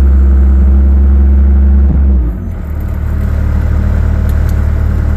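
Bobcat S130 skid steer's 46 hp four-cylinder non-turbo Kubota diesel running steadily at a raised speed. About two seconds in it drops back to a lower, quieter speed.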